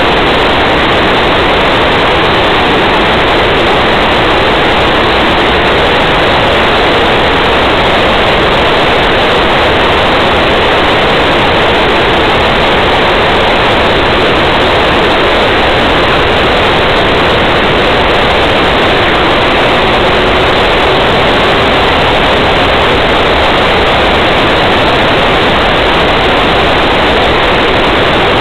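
Steady, loud rushing road and wind noise of a car driving along at speed, heard from inside the car.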